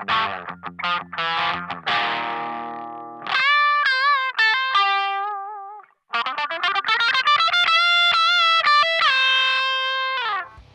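Electric guitar played through a T-Rex Nitros Hypergain distortion pedal with heavy gain. Rhythmic chugging chords give way to a ringing chord. A single-note lead line with vibrato follows, then a short break, then a fast run of notes ending on a long held note that bends down at the end.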